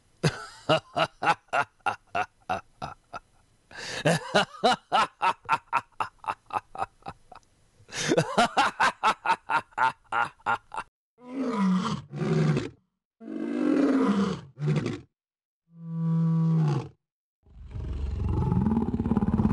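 Fast pitched pulses, about five a second, for roughly eleven seconds. Then come several short growls and one long roar near the end.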